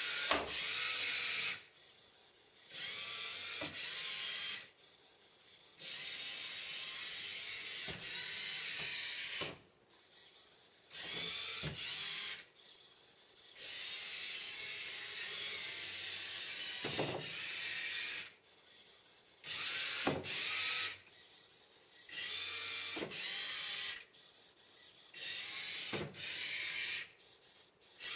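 Small tracked robot's electric drive motors and gearboxes whirring in about ten stop-start bursts of one to a few seconds, with short pauses between, as it drives and turns in trial-and-error moves after meeting a wall. A few sharp clicks come in among the bursts.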